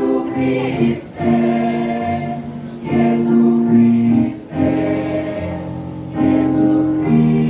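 Children's choir singing in several parts: long held chords in phrases, broken by short breaths with crisp consonants between them.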